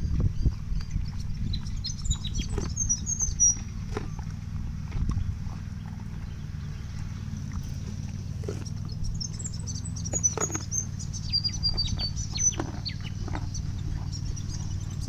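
Birds chirping in quick high runs, twice, over a steady low rumble with scattered short knocks.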